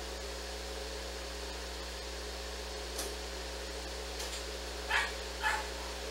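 A dog gives two short barks about half a second apart near the end, over a steady background hum.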